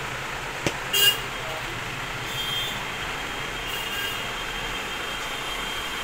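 Steady background noise of road traffic, with a sharp click and then a short horn toot about a second in.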